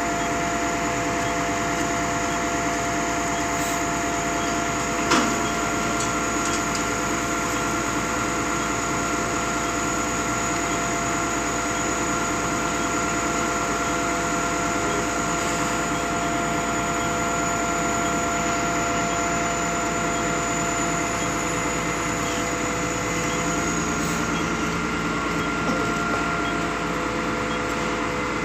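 Concrete pump machinery running with a steady hum and a high whine. A single sharp knock comes about five seconds in.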